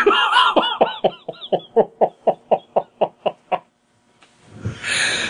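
A man laughing in a run of short pulses, about five a second, falling in pitch and fading out, then a noisy breath near the end.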